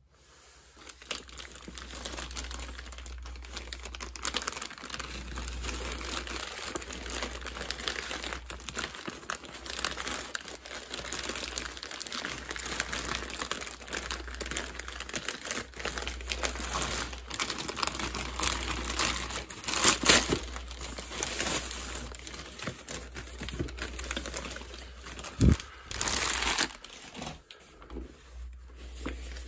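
Camera packaging being unwrapped and handled, with continuous crinkling and crackling of wrapping. There is a louder rustle about two-thirds of the way through and a dull knock near the end.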